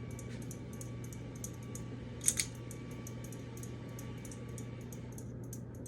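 Ceiling fan running on high speed: a steady motor hum with a regular light tapping, about four ticks a second, and a louder double click a little over two seconds in. The fan wobbles on a bracket that is not seated all the way.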